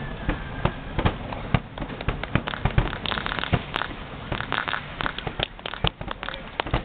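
Fireworks finale: a rapid, continuous barrage of aerial shell bursts, many booms and reports a fraction of a second apart, with crackling bursts about three and four and a half seconds in.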